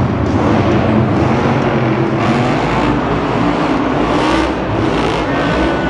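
A vehicle engine running loudly and revving, its pitch wavering up and down, with a few brief louder surges.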